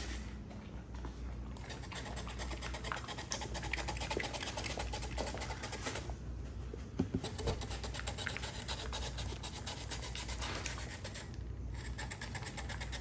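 A celery stalk rubbed on a handheld plastic grater in rapid back-and-forth strokes, giving a steady scratchy rasp. The grating stops briefly about six seconds in and again near the end.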